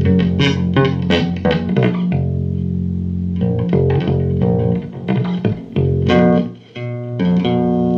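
Guitar music: quick plucked notes over low held bass notes, with a short break about six and a half seconds in before the playing resumes.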